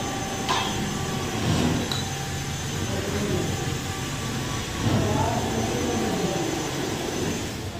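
Steady hum of a work site with indistinct voices, loudest about five seconds in, and a single knock about half a second in.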